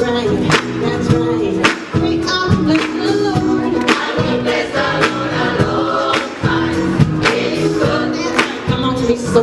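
Gospel choir singing with a live band, a drum kit keeping a beat under the sustained voices.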